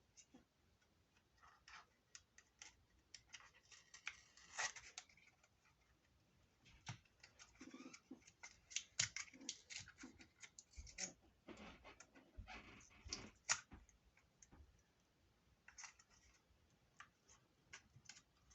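Faint, irregular small clicks and scrapes of fingers and nails working at the parts inside an open laptop around the RAM, trying to work out how it opens.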